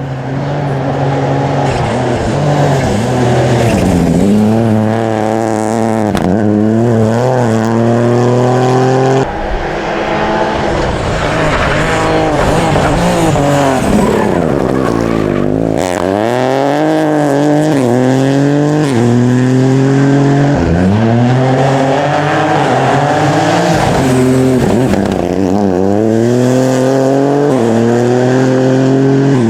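Rally car engine running hard under load, its pitch climbing and falling as it goes through the gears and lifts off. It drops sharply about nine seconds in and again around sixteen seconds.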